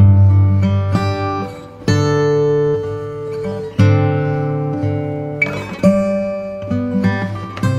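Background music: strummed acoustic guitar chords, changing about every two seconds.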